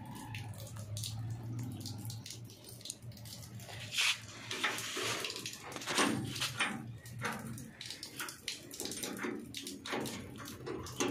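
Hands working a pipe and cloth against a sheet-metal door: rustling with scattered clicks and small knocks, two sharper knocks about four and six seconds in, over a steady low hum.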